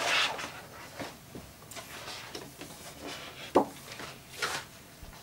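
Handling noises from statue parts being picked up and moved: rustling and light knocks, with one sharp knock about three and a half seconds in.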